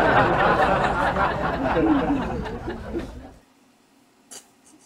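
Loud, breathy laughter that fades and stops about three and a half seconds in, followed by a faint click near the end.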